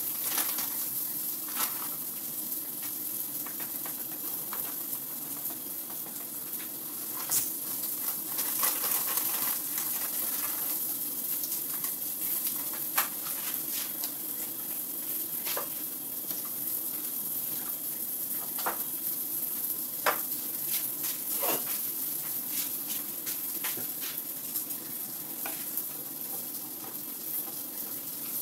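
Steady sizzling of food frying in a pan, with scattered light clicks and taps of utensils against a bowl and dishes.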